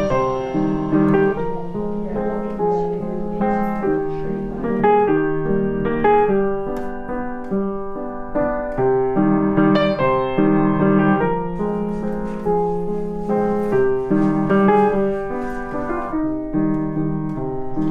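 Background piano music: a gentle melody of separate notes over held chords.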